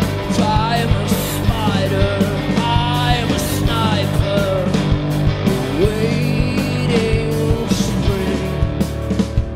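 Live rock band playing: an electric guitar and a bass guitar over drums, with a man singing a sliding melody.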